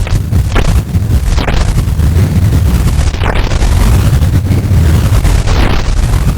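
Synadrone noise synthesizer putting out a loud, dense low rumble with crackling clicks in the first second or so. A notch in the highs sweeps down and back up twice, once near the middle and once near the end.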